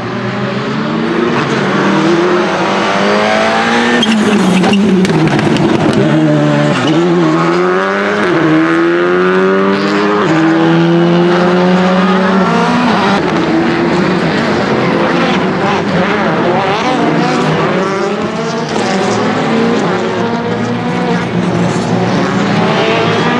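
Rally car engine revving hard, its pitch climbing and dropping again and again through gear changes and lifts for corners.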